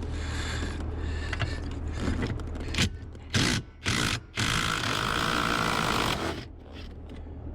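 A cordless power tool's motor running in spurts as it backs out the steering column's mounting bolts: a steady run, a few short trigger pulls about three to four seconds in, then another steady run that stops about six seconds in.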